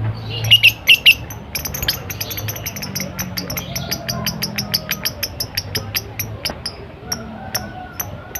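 Lovebird chattering: a fast run of short, high chirps, about five a second, with a few louder calls in the first second.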